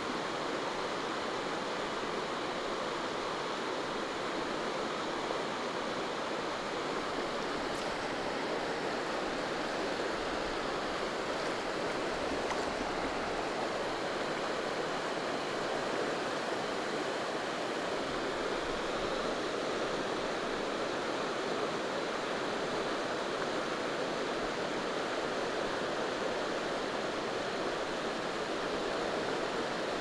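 Rocky river flowing fast over boulders: a steady, even rush of water.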